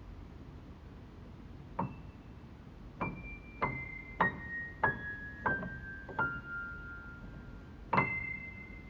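Slow piano notes struck one at a time, each ringing on and stepping downward in pitch, then a louder final note near the end.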